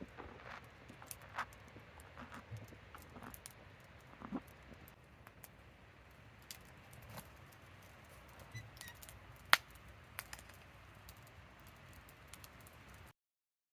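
Scattered small clicks and light taps of objects being handled, with one sharp click about nine and a half seconds in; the sound cuts off suddenly near the end.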